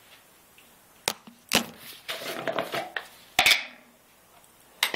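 Plastic screw lid of a peanut butter jar being twisted and handled: several sharp clicks and knocks, the loudest a double click about three and a half seconds in.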